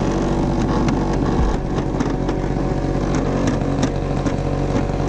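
Yamaha Booster scooter engine idling steadily at a constant pitch, with scattered light clicks over it.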